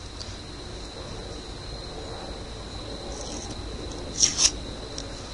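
Quiet room tone with a steady high-pitched whine, and two short hissing rustles about four seconds in.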